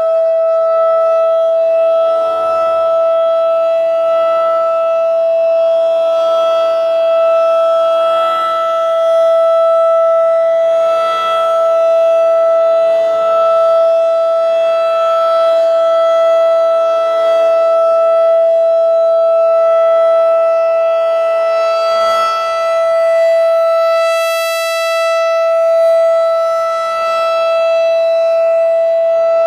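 Federal Signal 2001-SRN rotating civil defense siren sounding a steady, single-pitch alert tone at full speed, swelling and fading slightly as it rotates. Fainter tones from other sirens on the system sound underneath.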